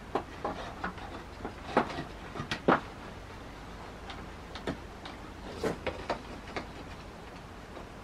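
Scattered light knocks and clicks of a plastic dryer-vent flange and a thin wooden fence board being handled and fitted together, the loudest knocks about two and three seconds in.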